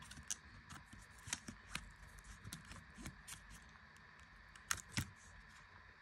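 Faint small clicks and light scrapes of fingers working a laptop battery cable's plug into its motherboard connector, with two sharper clicks near the end.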